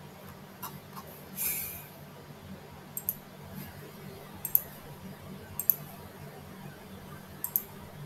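Computer mouse clicks, single and in pairs, every second or so over a low steady hum, with one short breathy hiss about a second and a half in.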